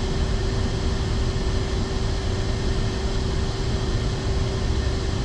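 Steady mechanical drone of workshop machinery with a constant hum and low rumble, unchanging throughout.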